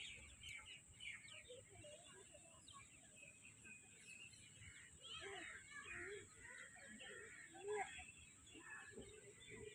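Faint outdoor park ambience: scattered bird chirps and a few soft, brief voice sounds, over a steady high hiss.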